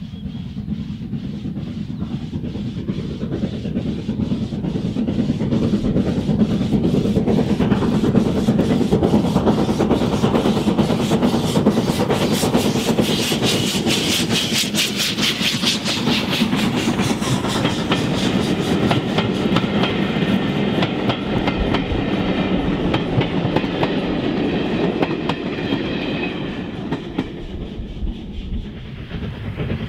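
Steam locomotive hauling a train, a rapid, even rhythm of beats over steady running noise, building up over the first several seconds and easing a little near the end.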